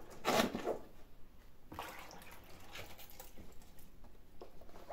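Quiet handling sounds as vegetables are packed into a pickling jar: a brief rustle just after the start, then a couple of faint soft knocks.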